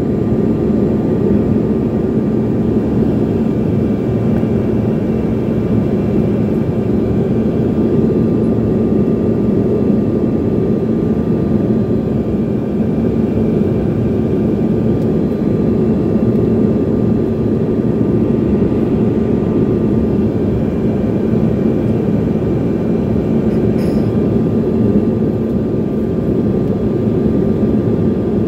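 Cabin noise of a small passenger plane: the engines drone steadily, with a low hum and a fainter higher whine running through it.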